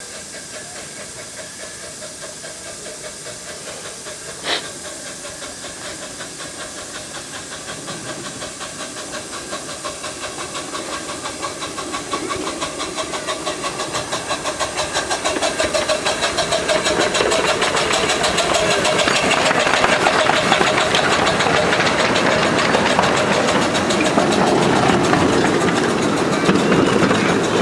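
Miniature live-steam locomotive pulling away with a loaded passenger train: hissing steam with regular exhaust chuffs that quicken and grow louder as it comes closer. There is one sharp knock about four and a half seconds in.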